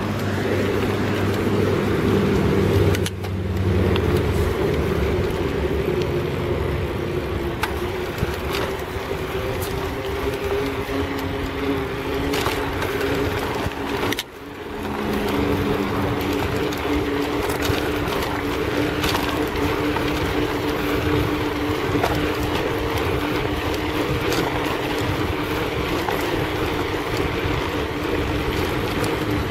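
Small motorcycle engine running steadily while riding, with wind noise on the microphone; the engine note shifts about three seconds in, and the sound briefly dips about halfway through.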